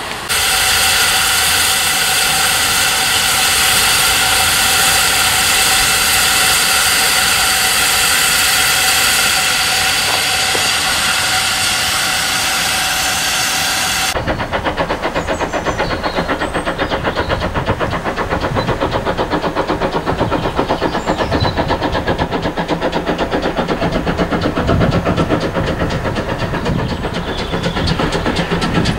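A GWR pannier tank steam locomotive's safety valves blowing off: a loud, steady hiss that starts suddenly and cuts off abruptly about halfway through. After that, a locomotive engine runs with a fast, even throb.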